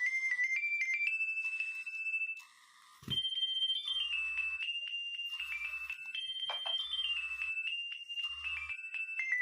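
Nokia 2300 mobile phone ringing with an electronic ringtone melody of quick stepping notes. The tune breaks off briefly about two and a half seconds in, a click follows, and then it starts again. From the middle on it is joined by short, regularly repeated pulses of low buzzing.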